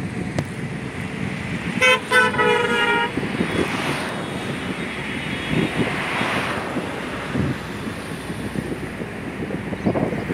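Road traffic rumble with a vehicle horn honking about two seconds in: a brief toot, then one held for about a second.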